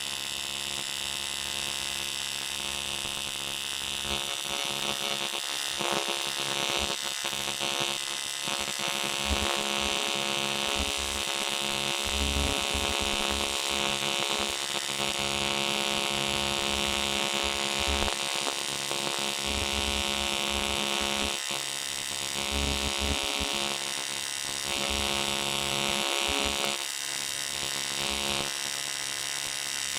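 AC TIG (argon-arc) welding arc on aluminium, a steady electric buzz and hum with a hiss on top, its low part flickering as filler rod is fed into the weld pool.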